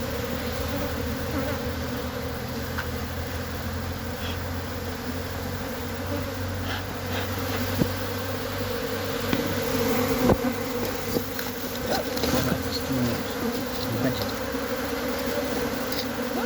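A mass of honeybees buzzing in a steady drone around an opened hive during a colony transfer, with a few sharp knocks about halfway through.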